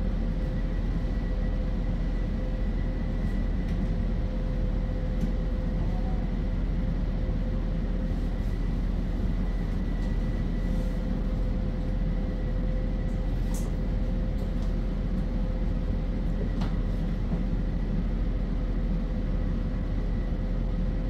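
Cabin noise of a moving autonomous city bus: a steady road and drivetrain rumble with a constant whine running under it, and a few faint ticks.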